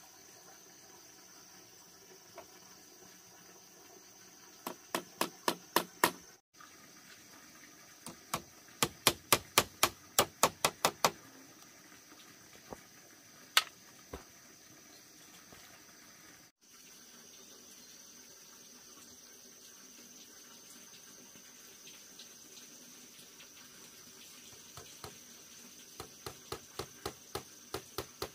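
Rapid light hammer taps on a bamboo frame, in runs of several strikes about four to five a second, with one louder single knock in the middle. Under them runs a steady high insect drone.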